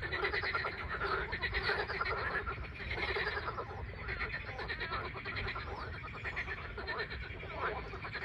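A chorus of many frogs calling at once, with rapid, overlapping pulsed croaks that run on without a break.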